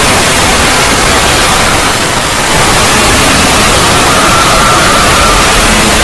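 Loud, harsh static-like noise spread evenly from low to high pitch: an edited, heavily distorted 'void' logo sound effect. It dips slightly about two seconds in, and a faint high tone shows through it around four to five seconds in.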